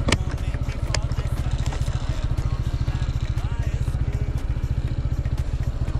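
Motorcycle engine running steadily while riding, with two sharp clicks, one right at the start and one about a second in.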